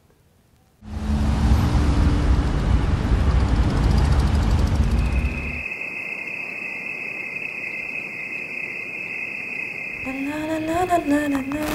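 A loud rushing, rumbling noise lasting about five seconds, followed by the steady high chirring of crickets. Near the end a woman starts humming a tune.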